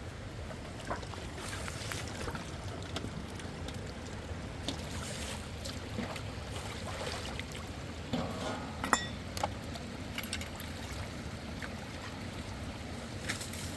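Steady rush of running river water, with scattered small knocks and clicks, a cluster of them about eight to nine seconds in.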